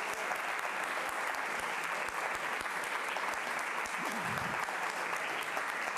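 Audience applauding steadily: many hands clapping together in a dense, even patter after a lecture ends.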